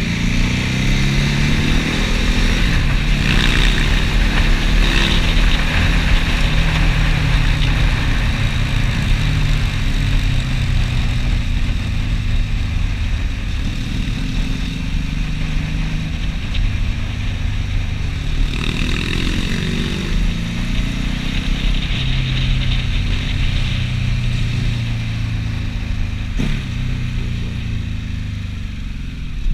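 Motorcycle engine running while being ridden, its pitch rising and falling as the rider accelerates, shifts and eases off through the bends, with wind rushing over the microphone.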